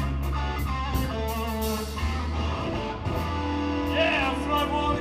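A blues trio playing live: electric guitar lines over bass guitar and drum kit, with cymbals struck on a steady beat.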